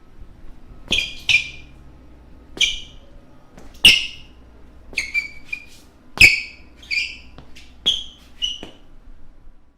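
Basketball shoe soles squeaking on a gym floor: about ten short, sharp, high-pitched squeaks at irregular intervals, as from quick cuts and stops.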